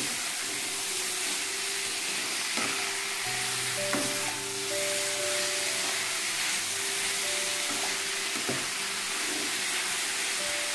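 Shredded cabbage, potato and dried fish sizzling in hot oil in a metal pan as they are stirred and turned over with a spatula, with a few short scrapes of the spatula against the pan. Soft background music with held notes plays under it.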